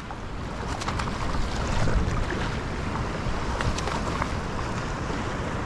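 Steady outdoor wind and water noise, with a few faint ticks scattered through it.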